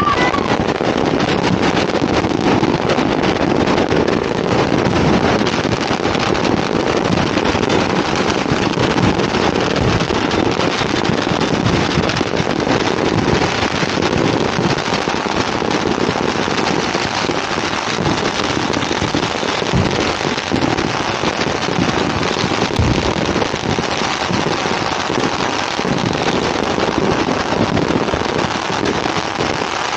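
Steady, dense crackle of many firecrackers going off at once, a continuous barrage of rapid pops with no single bang standing out.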